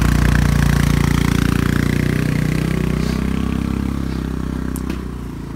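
Honda Dio scooter engine running close by, then fading over the last few seconds as the scooter rides away.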